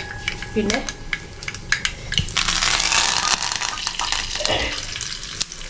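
Mustard seeds spluttering and popping in hot oil in a small frying pan, a fast run of sharp crackles, with a steel pan lid clinking. About two seconds in a louder, denser sizzle sets in for a second or two, as curry leaves go into the hot oil.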